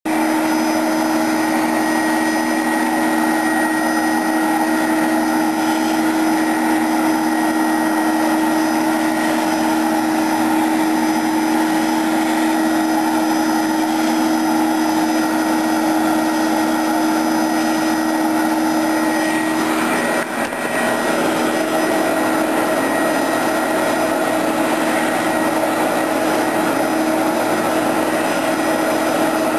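Vacuum cleaner running steadily, a motor whine over a rush of air. Its tone shifts briefly about twenty seconds in.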